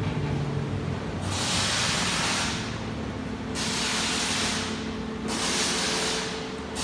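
Cutting torch on a CNC track cutter hissing while it cuts 3/8-inch steel plate. The hiss swells and fades about every two seconds, over a steady low hum.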